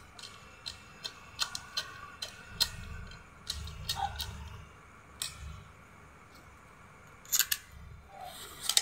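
Scattered clicks and knocks of plastic and metal parts as an electric fan's oscillation gearbox is fitted onto its motor housing and screwed down. The loudest are a quick pair about seven seconds in.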